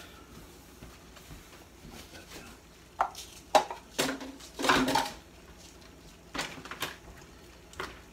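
Kitchen clatter: sharp knocks and rattles of objects being handled and set down on the counter. The first three seconds are quiet; the knocks then come in small groups from about three seconds in.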